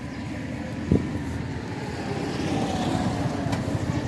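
A motor vehicle passing at low speed, its engine note falling slightly in pitch as it goes by over a low rumble, with a single sharp knock about a second in.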